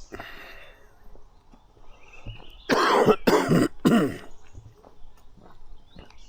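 A person coughing three times in quick succession, about three seconds in.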